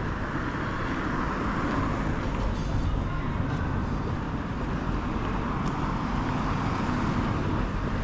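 City street ambience: a steady hum of road traffic passing.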